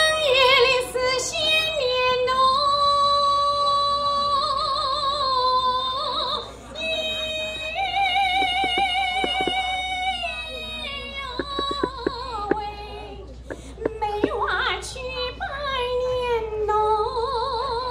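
A woman singing solo in a high, folk-opera style, holding long notes with wide vibrato and sliding between pitches.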